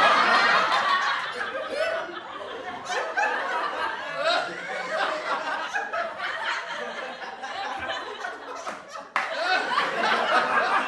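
A group of people laughing and chuckling over one another, with some talk mixed in. The laughter cuts off abruptly about nine seconds in and a louder burst of laughter starts straight after.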